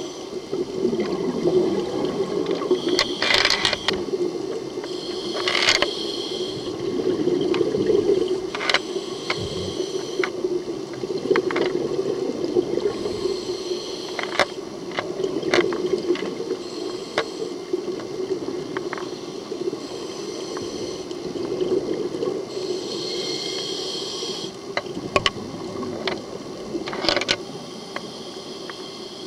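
Underwater sound picked up through a camera housing: a steady low rush of water, with a scuba diver's regulator breathing now and then, short hissing breaths and bubbles, and scattered small clicks.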